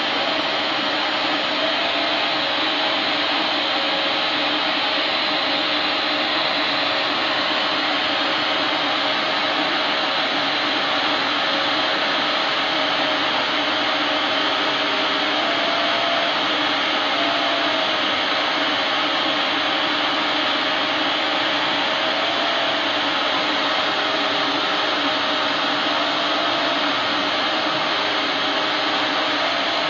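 Epilog Mini 24 35 W CO2 laser cutter running while it cuts 3 mm wood: a steady rush of blown air from the machine, with faint short whines that come and go as the cutting head moves.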